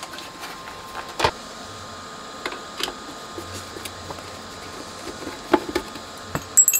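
A metal-cased rack effects unit being handled on a workbench while a screwdriver is put to its cover screws: a few scattered knocks and clicks, then a brief high squeak near the end.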